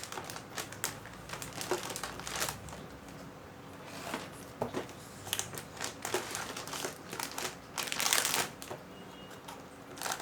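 Packaging crinkling and rustling in irregular bursts as a motherboard box is unpacked by hand, with a longer, louder crinkle about eight seconds in.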